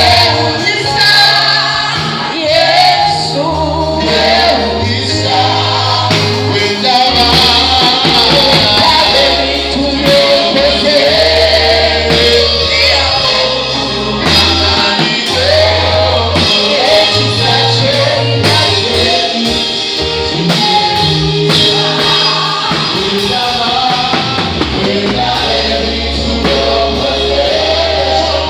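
Live gospel worship music: a man sings lead through a microphone over music with long sustained bass notes, with other voices joining.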